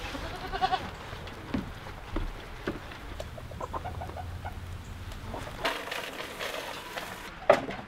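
A goat bleats briefly at the start over clucking chickens, with scattered small clicks. Later, feed pours from a plastic scoop into a feeder with a rushing rattle, and a sharp knock comes near the end.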